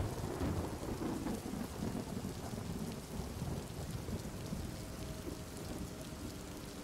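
Steady rain falling, with a low rumble of thunder that fades over the first few seconds.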